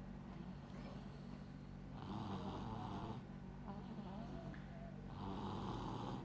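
Snoring in sleep: two long, noisy snores about three seconds apart, one about two seconds in and one near the end, with quieter breathing between them.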